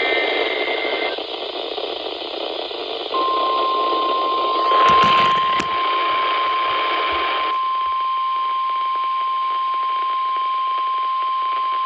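Weather-radio receiver hissing with static, then about three seconds in the steady 1050 Hz warning alarm tone of a NOAA Weather Radio emergency alert starts and holds unbroken, signalling a warning broadcast. A louder burst of static comes around five seconds in, and the hiss fades under the tone a couple of seconds later.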